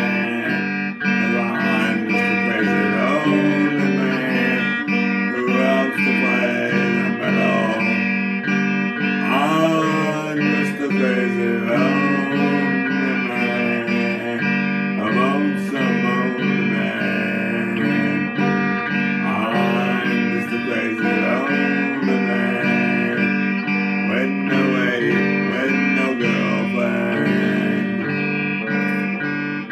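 Electric guitar music, an instrumental stretch: gliding, bent lead notes over a steady, repeating low accompaniment.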